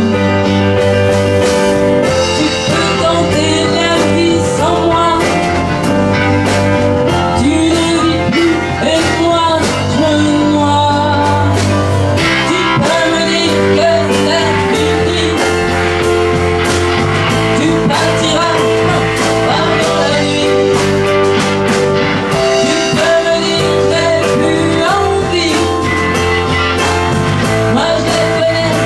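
Live band playing an instrumental passage between sung lines, with electric guitar, drums and keyboard.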